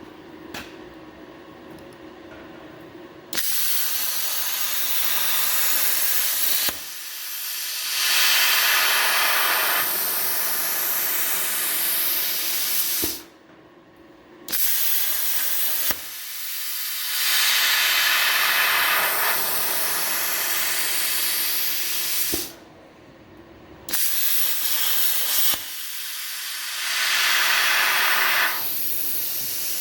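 Herocut 55x air plasma cutter on a CNC table cutting sheet steel: a loud, steady hiss of the arc and cutting air. It starts about three seconds in and cuts out briefly twice, around the middle and again later, as the torch stops between cuts.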